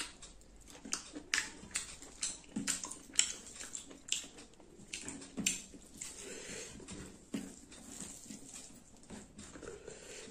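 Close-up chewing with wet, irregular lip smacks and mouth clicks, the loudest about three seconds in, from a person eating curry and rice by hand. Soft squishing of rice and gravy being mixed by hand on a steel plate.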